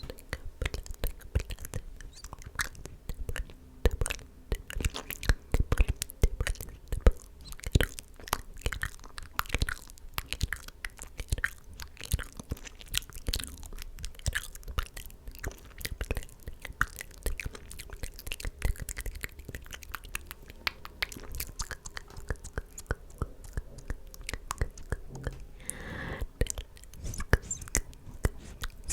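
Close-miked ASMR mouth sounds: wet clicks, smacks and tongue pops, several a second, with a brief breathy whisper near the end.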